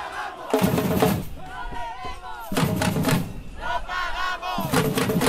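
A protest batucada: a marching crowd shouts a chant in unison, and between its lines come three short bursts of drumming and pot lids banged together. The chant and the percussion take turns about every second.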